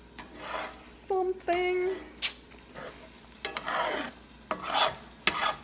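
A utensil scraping and stirring scrambled eggs around a cast iron skillet in irregular strokes, over a light sizzle of egg cooking in butter. A brief pitched sound stands out about a second and a half in.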